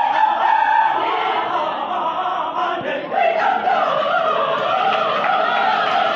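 Large mixed choir of men and women singing together, many voices blended.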